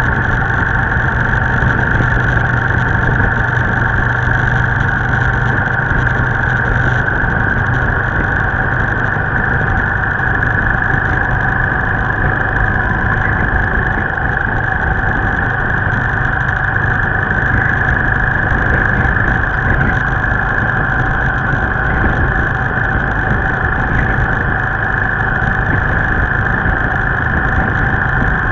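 Steady drone of a moving motorbike's engine mixed with wind and road noise, heard from a camera on the bike.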